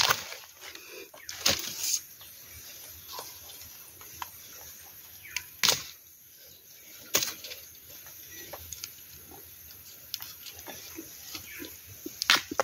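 A knife chopping through bamboo shoots: a few sharp, separate chops several seconds apart, with faint crackling between them.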